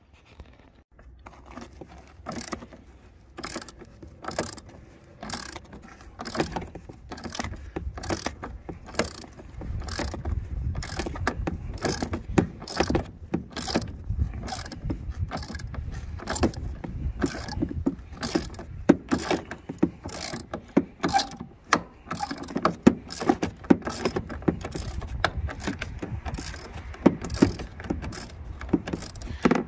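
Hand socket ratchet clicking in quick, repeated strokes, about two a second, as a bolt is wound out of the bulkhead box, with a low rumble underneath.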